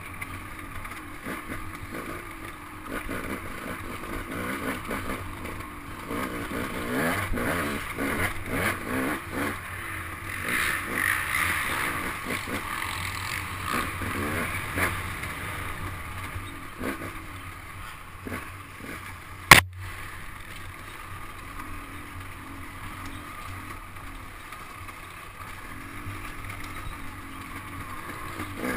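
Dirt bike engine racing along a woods trail, revving up and down with the throttle and louder for several seconds in the middle. About two-thirds of the way through comes one sharp, loud knock.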